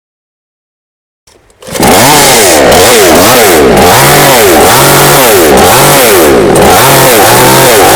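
A small engine revved up and down over and over, its pitch swooping up and falling back about one and a half times a second. It starts suddenly after a moment of silence and is very loud.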